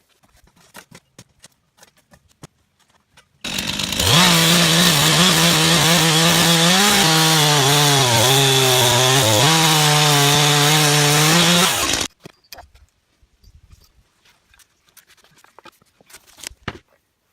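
Stihl chainsaw running at high revs, cutting through tree wood, for about eight seconds in the middle, its pitch dipping briefly twice; it starts and stops abruptly. Faint clicks and knocks before and after.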